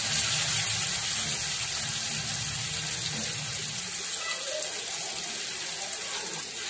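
Fish pieces frying in hot oil on a dosa griddle, a steady sizzling hiss.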